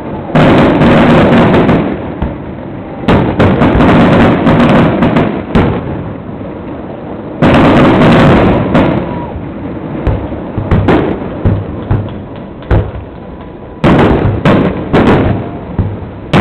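Fireworks display: a string of loud booming bursts of aerial shells, each trailing off in a rumbling echo, with clusters of sharper crackling pops between them.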